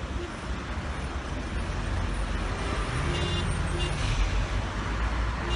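Traffic noise on a jammed highway: a steady low rumble of idling engines, with two short car-horn toots about three seconds in.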